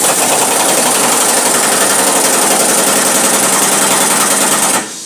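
Pneumatic impact wrench hammering on a front lower control arm mounting bolt in a loud, fast, steady rattle that cuts off suddenly near the end.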